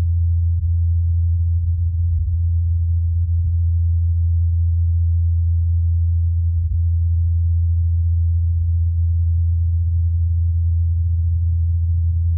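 Ingenuity Mars helicopter's rotor blades humming as a steady low tone. It was recorded on Mars by the Perseverance rover's microphone, with the blade sound isolated and amplified.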